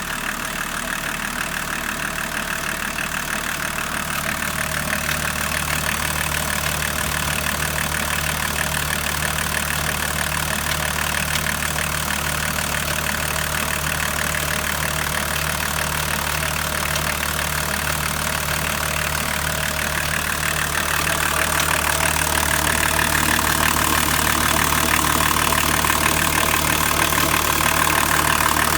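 BMW 525 tds E34's 2.5-litre turbodiesel straight-six idling steadily, with a noise in its running that the owner takes to be abnormal. About twenty seconds in it gets a little louder and brighter.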